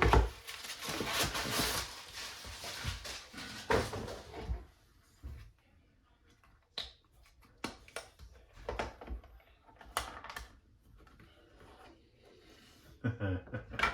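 Packaging being handled and opened: a rustle for the first couple of seconds, then scattered clicks and knocks as the box and its contents are handled.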